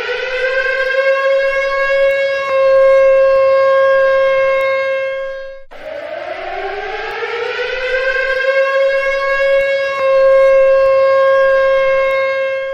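Civil defense siren sounding an attack warning: it winds up in pitch to a steady tone and holds, cuts off abruptly about halfway through, then winds up and holds again.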